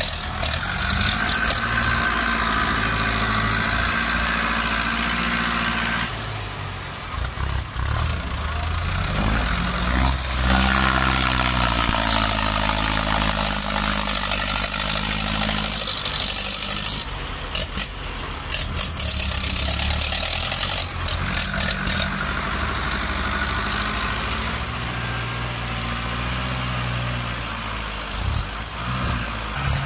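Ford farm tractor's four-cylinder diesel engine running under load through a loud exhaust, pushing soil and dragging a disc plough. The engine pitch rises and falls several times as the revs change.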